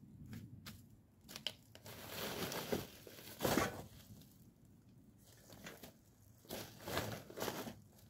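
Split firewood being picked off a woodpile and loaded into a container: irregular knocks and clatters of logs, with crinkling of plastic sheeting and bags.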